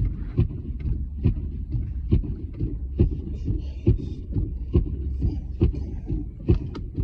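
Low engine and road rumble heard from inside a vehicle driving through snow, with a regular thump a little slower than once a second, typical of windshield wipers sweeping.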